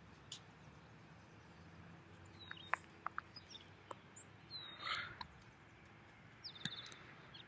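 Birds chirping faintly, with short high downward chirps a few times over a low outdoor background.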